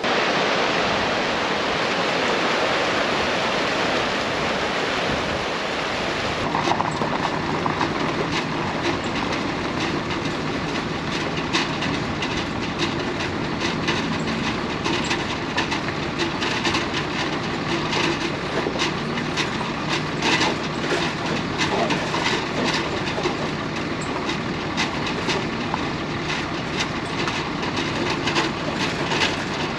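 Rushing water over rocks for the first few seconds, then steady road noise from a truck driving a gravel road, heard from inside the cab, with dense rattling and clicking over the rumble.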